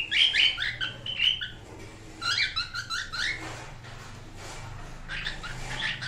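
Cockatiels calling in three quick runs of short, rising, whistle-like chirps: one at the start, one about two seconds in, and one near the end.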